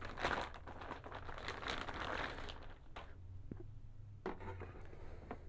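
Motherboard packaging being handled: a crinkling, rustling noise for about three seconds as the box is closed up, then quieter handling with a few light knocks as the board is set down on the box.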